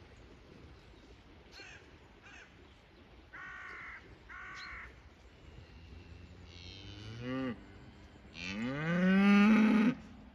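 Cattle mooing: a short rising moo about seven seconds in, then a long, loud moo near the end. Two shorter, higher-pitched calls come a few seconds earlier.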